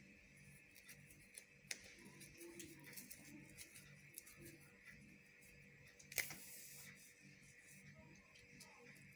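Near silence: faint rustles and clicks from hands handling feathers and crinoline while threading a needle, with one sharper click about six seconds in.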